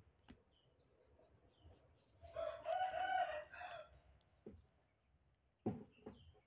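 A rooster crows once, about two seconds in, with a call lasting under two seconds. A couple of faint knocks follow near the end.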